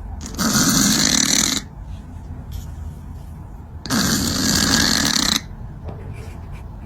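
Loud snoring: two long snores about three and a half seconds apart.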